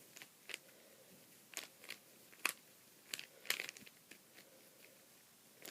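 Rubik's Cube being scrambled by hand under a blanket: irregular plastic clicks and crunches as the layers are twisted, about eight in all, with cloth rustling.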